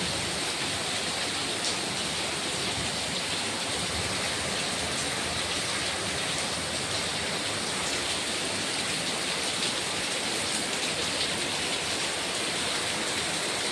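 Heavy rain falling steadily, a dense even hiss with scattered faint drop ticks.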